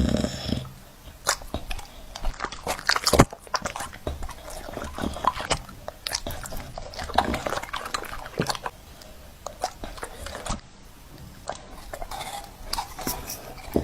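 A dog chewing and gnawing, with irregular crunchy clicks and bites.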